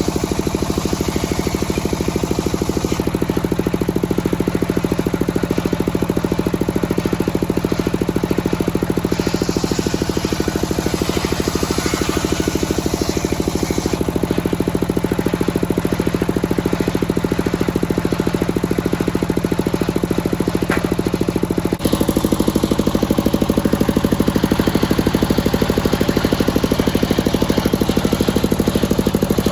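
Engine-driven circular sawmill running steadily, its engine beating at a fast even rate while the blade cuts teak wood, the cutting hiss swelling and fading. The sound changes abruptly and gets a little louder about two-thirds of the way through.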